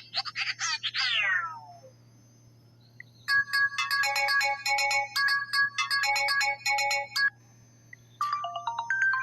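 Sony Xperia L4 ringtone and notification tones played one after another. First a run of quick falling chirps dies away, then a short electronic melody of bright chiming notes plays twice, and near the end a new tune begins with rising stepped notes.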